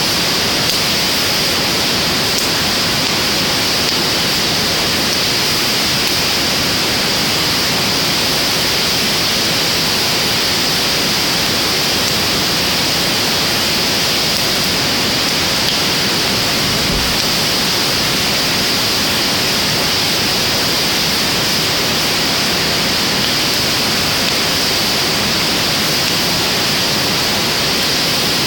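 Driftwood fire burning in a fire pit, a steady rushing hiss with almost no separate crackles or pops.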